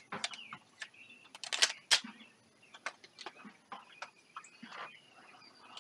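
Scattered light clicks, knocks and rustles of a pistol and gear being handled while the shooter resets between strings, the loudest a couple of sharp clicks about a second and a half to two seconds in. Faint bird chirps sound in the background.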